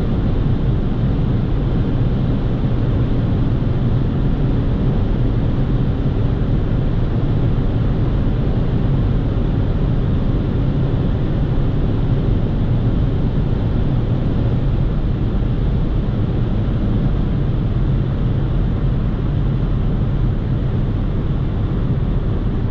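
In-cabin sound of a Skoda Rapid's 1.2-litre naturally aspirated three-cylinder petrol engine running steadily at high revs, with road and wind noise, as the car holds close to its top speed of about 155–160 km/h.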